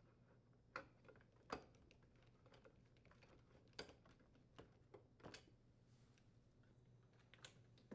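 Faint, scattered clicks and light taps, about seven of them at irregular spacing, from a screwdriver and small metal parts being handled as a screw is threaded into a dishwasher's door hinge bracket.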